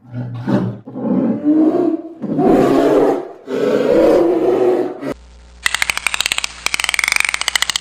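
A large wild animal roaring four times in long, low, rough calls. About five seconds in it cuts off, and a fast, rapid-pulsed buzzing call of a different animal begins.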